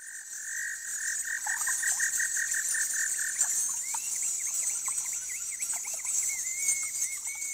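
Animal sounds: a steady high-pitched insect buzz, with a call pulsing about four times a second for the first three seconds or so, then a run of quick chirps.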